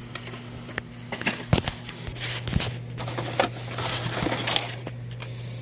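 Cardboard boxes and plastic blister-carded toy cars being handled and shuffled: irregular clicks, taps and rustling over a steady low hum.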